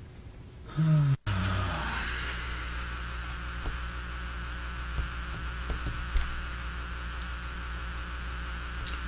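A brief cutout as the console switches microphone channels, then a steady electrical hum with buzz and hiss through the Apex175 shotgun condenser mic's channel, with a few faint clicks. This is the noisy, faulty signal that makes the Apex unusable.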